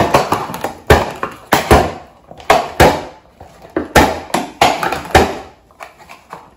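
Homemade balloon air cannons, plastic cups with a stretched balloon membrane, fired in quick succession: the balloons are pulled back and let go, giving a string of about nine sharp snaps at uneven intervals, the last few fainter.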